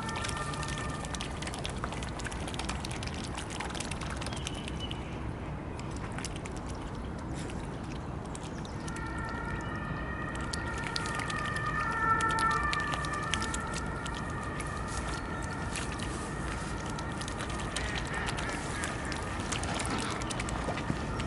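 Mute swans and mallards dabbling at floating pellets on the pond surface: small splashes and clicks of bills at the water. A steady high tone sounds in the background at times, clearest about halfway through.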